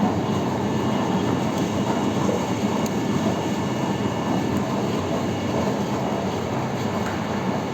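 Industrial machine for processing waste glass for recycling, running steadily. It makes a continuous dense rumbling din with a low hum underneath and no let-up.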